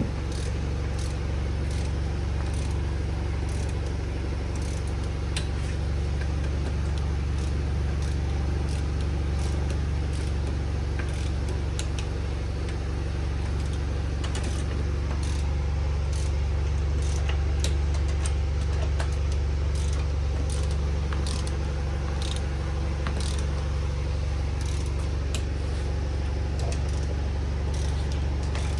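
Scattered light metallic clicks and clinks of tools and beadlock ring hardware being handled, over a steady low hum.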